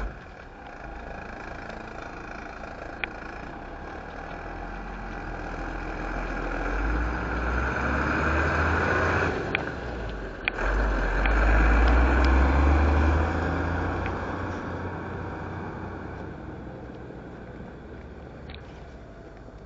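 Engine of a 1984 International 1954 service crane truck as it drives close past and away. Its sound builds to its loudest about ten to thirteen seconds in, with a brief drop near ten seconds, then fades as the truck pulls off.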